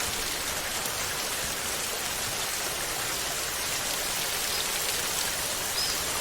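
Heavy rain falling steadily on glass, an even, unbroken wash of drops.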